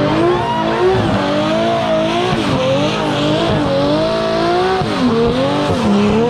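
Drift car engine held at high revs in a stationary burnout, its pitch wavering up and down under a hand throttle, with the rear tyres spinning and squealing against the ground. Near the end the revs dip deeply a couple of times.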